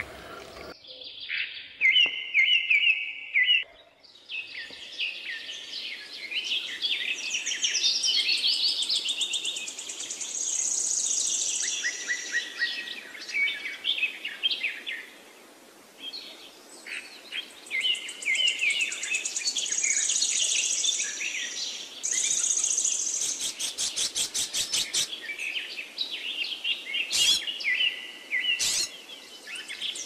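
Songbirds singing: a steady stream of high chirping and warbling phrases with rapid trills, briefly pausing twice.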